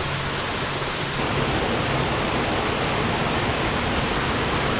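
Steady rushing of a waterfall's falling water close to the microphone, growing slightly louder about a second in.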